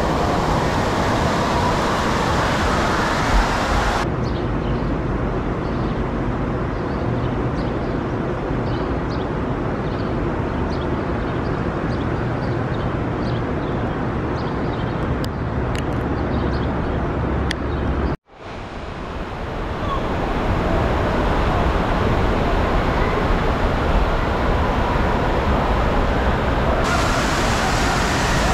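Steady rush of water and general crowd din echoing through an indoor water park, with abrupt changes in the noise at cuts between shots about 4 and 18 seconds in. Near the end, water churns in a raft slide's splash-down pool.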